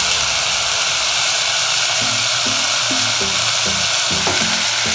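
Chopped tomatoes and onions in oil sizzling in a cooking pot on low heat, a steady hiss. Background music with short low notes comes in about two seconds in.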